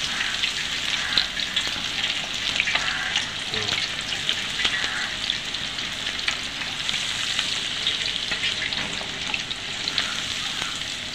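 Chicken pieces deep-frying in hot sunflower oil in a wok: a steady, dense crackling sizzle, while a perforated steel skimmer stirs the pieces through the oil.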